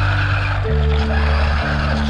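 Background music with a steady bass line, over the rushing noise of a small RC car's motor and tyres rolling on rough paving.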